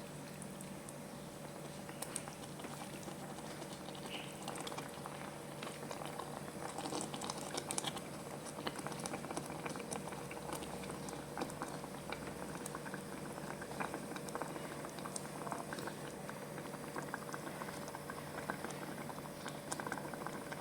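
Squid simmering in a spicy sweet soy sauce gravy in a pan, the sauce bubbling with many small pops, over a steady low hum.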